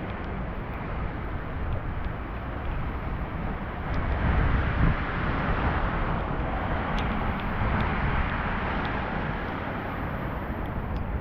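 Steady rain falling, an even hiss over a low rumble, swelling a little about four seconds in, with a few faint ticks of drops.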